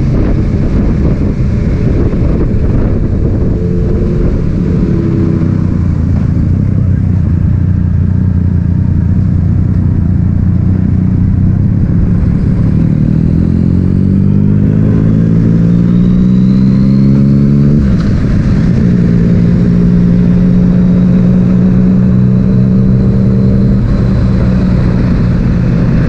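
Yamaha MT-09's three-cylinder engine holding steady revs, then revving up in a rising pitch for about five seconds before dropping off sharply as the throttle closes or a gear is changed, then settling at steady revs again. A rushing wind noise runs underneath.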